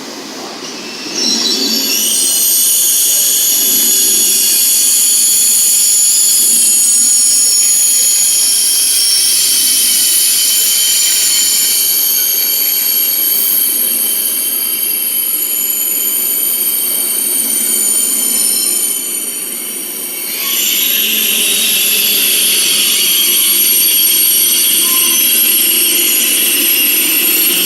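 KTX high-speed train squealing: a loud, high-pitched squeal of several steady tones at once over a low rumble. It starts about a second in, eases briefly about two-thirds of the way through, then comes back.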